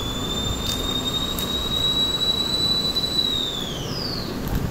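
A long, high whistle-like tone that rises slightly, holds steady, and then falls away about four seconds in. It sounds over a steady background hiss.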